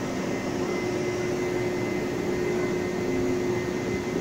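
Taiwan Railway push-pull Tze-Chiang Express passenger coaches rolling slowly past: a steady rumble with a constant mid hum and a thin high whine.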